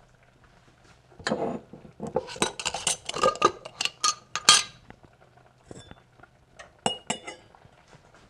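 Empty glass canning jars, a metal jar lid and a stainless steel canning funnel being handled and set down on a wooden counter: a quick run of glassy clinks and knocks for a few seconds, then a couple of sharp clicks near the end.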